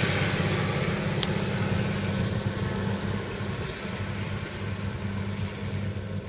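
New Holland T8020 tractor engine running steadily under load while pulling a forage wagon, its low drone slowly fading. A single short click about a second in.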